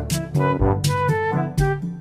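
Instrumental background music: short, sharply struck pitched notes, several a second, over a low bass line.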